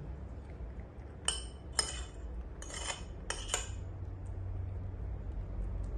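Tableware clinking: about five short, sharp, ringing clinks in quick succession in the first half, like a spoon knocking against a dish.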